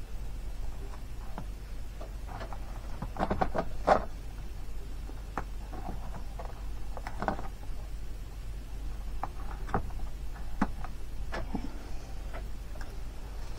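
Cardstock and paper being handled: rustling and small clicks and taps as paper pieces are bent and pressed into place, with a louder flurry of crinkling about three to four seconds in. A faint steady low hum lies underneath.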